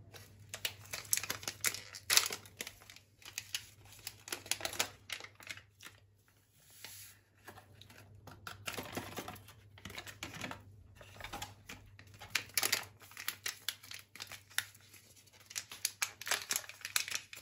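Instant latte sachets and their cardboard box crinkling and rustling as they are handled, with irregular crackles and a short lull about six seconds in.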